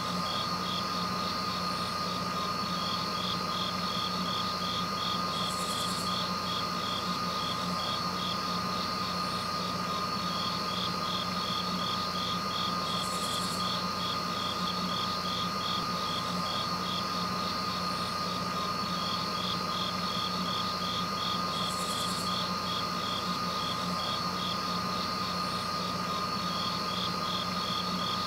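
Crickets and other insects singing in a steady chorus: fast, even chirping, a constant high tone, and a short buzzy call that recurs about every seven to eight seconds.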